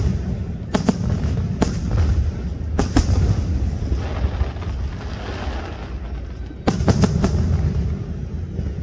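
Aerial fireworks shells bursting close by: sharp bangs about a second in, near two seconds and near three seconds, then a quick run of three about seven seconds in, over a continuous deep rumble.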